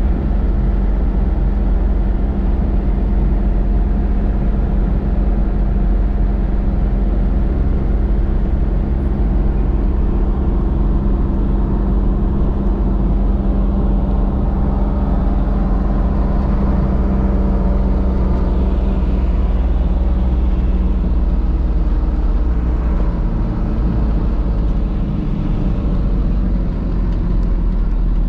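Vehicle cruising at speed on a smooth paved highway: a steady engine drone with road and tyre noise underneath.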